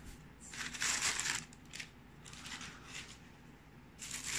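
Plastic bubble wrap and packaging crinkling as a hand handles it, in several short bursts with a louder stretch near the end.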